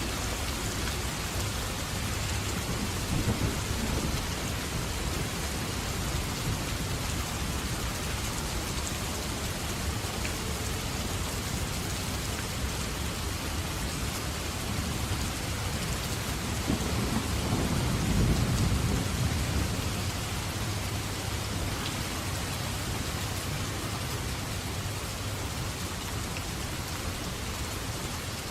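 Steady heavy rain with thunder rumbling twice, once about three seconds in and again, louder and longer, a little past halfway.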